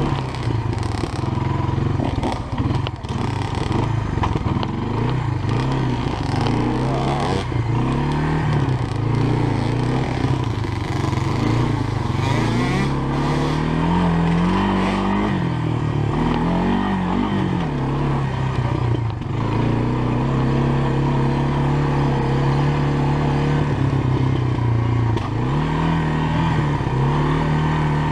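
Four-stroke engine of a Honda FourTrax ATV running under throttle from the rider's seat, its pitch rising and falling repeatedly as the throttle is opened and eased on the rough trail, with a few knocks and rattles.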